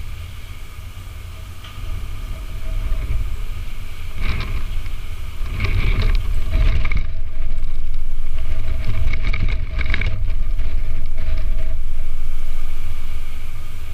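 An engine running steadily, a deep rumble with a faint steady whine over it, and a few knocks and rattles in the middle of it.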